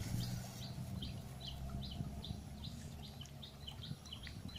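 A bird chirping steadily: a short high note repeated about three times a second, over a low rumble.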